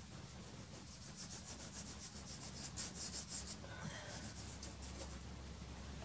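Soft pastel stick scratching across black pastel paper in quick short strokes, several a second, stopping about five seconds in.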